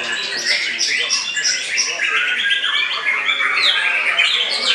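White-rumped shama (murai batu) singing an unbroken run of rapid, varied whistled phrases, dense and overlapping with other songbirds.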